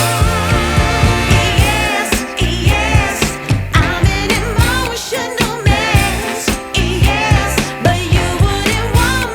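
Background song with a woman's or man's sung vocal line over a steady drum beat and bass.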